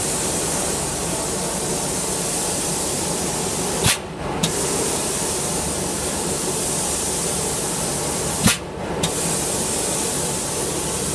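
Vertical glass sandblasting machine blasting: a steady loud hiss of compressed air and abrasive. Twice, about 4 and 8.5 seconds in, a sharp click comes and the hiss drops out for about half a second.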